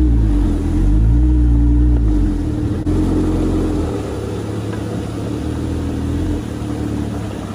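Jeep Gladiator pickup's engine revving as it crawls through a shallow creek and up onto gravel. The engine is loud for the first two seconds or so, then settles to a lower, steady running about four seconds in.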